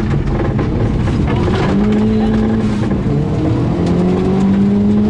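Turbocharged rally car engine pulling hard through the gears: the revs climb, drop at a gear change about three seconds in, then climb again, over loud road and tyre noise.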